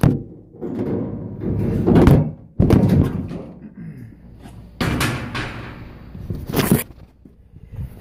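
Sheet-metal jacket panel of a Burnham steam boiler being taken off and handled: several separate thunks and scraping knocks, the loudest about two to three seconds in.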